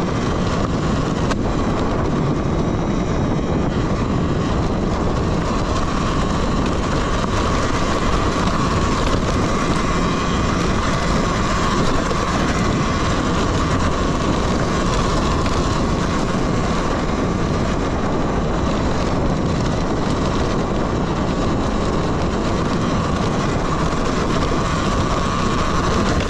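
Talaria Sting electric dirt bike being ridden over rough, rocky ground: a steady motor-and-drive whine over a continuous rumble and rattle from the tyres and chassis.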